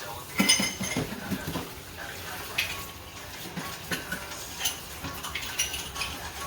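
Kitchen utensils clinking and scraping against cookware in irregular knocks, the loudest cluster with a short metallic ring about half a second in.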